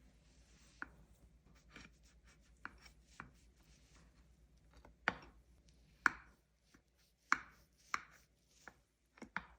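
Kitchen utensils knocking and tapping irregularly, about a dozen short strikes with a little ringing after each, the loudest between about five and eight seconds in.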